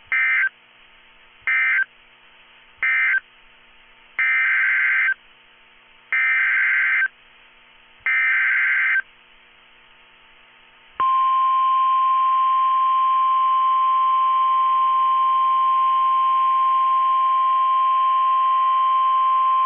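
Emergency Alert System tones. First come three short bursts of digital data tones, the end-of-message code closing the first flood warning. Then come three longer data bursts, the SAME header of the next warning, and about eleven seconds in a steady 1050 Hz attention tone starts and holds for about nine seconds.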